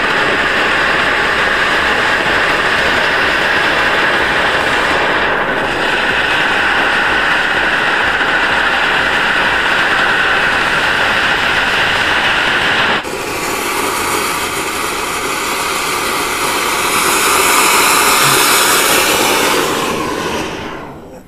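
Diwali anar (flower-pot) fireworks spraying sparks with a loud, steady hiss. About 13 seconds in the sound changes abruptly to a brighter hiss, and near the end it dies away.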